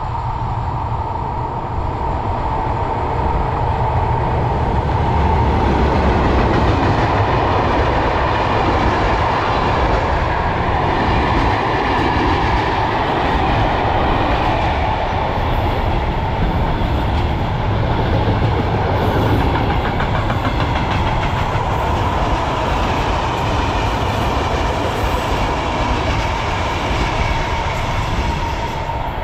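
A train running past close by: a long, steady roar of wheels on rails that swells a few seconds in and holds.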